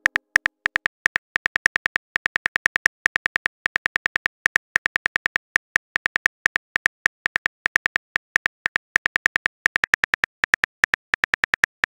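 Smartphone keyboard typing clicks: a quick, slightly uneven run of short taps, about seven a second with brief pauses, as a text message is typed out.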